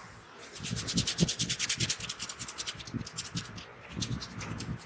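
Fingers rubbing and scratching briskly through hair on the scalp in a head massage, about ten quick scratchy strokes a second. The strokes ease off for a moment near the end, then start again.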